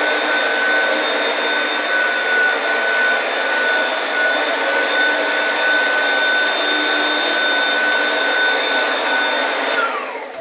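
Oreck vacuum cleaner running steadily with a high motor whine, then switched off near the end, the whine falling in pitch as the motor spins down.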